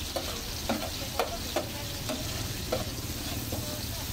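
A metal spatula scraping and clinking on a flat round steel griddle about twice a second, each stroke ringing briefly, over the steady sizzle of ham slices and onions frying.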